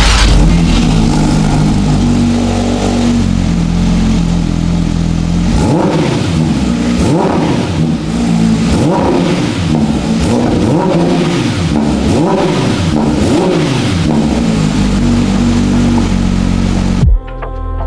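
Porsche 911 GT3 RS naturally aspirated 4.0-litre flat-six idling, then revved in a series of quick throttle blips that rise and fall in pitch, before settling back to idle. The engine sound cuts off near the end.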